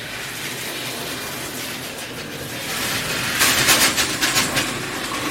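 Water rushing through newly plumbed supply pipes and out of a fixture with a steady hiss. From about three seconds in it turns into uneven sputtering and spitting as air in the lines blows through.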